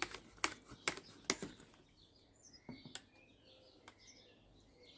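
Four sharp clicks about half a second apart in the first second and a half, then faint bird chirping in the background.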